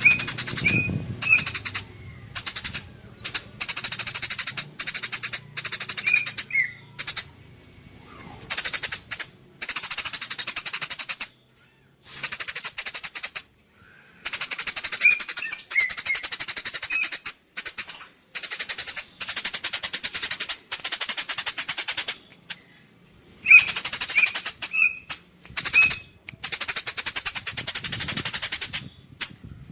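Recorded songbird song for training cage birds: bursts of rapid, buzzy high-pitched trills lasting one to three seconds, separated by short pauses, with brief clear whistled notes in between.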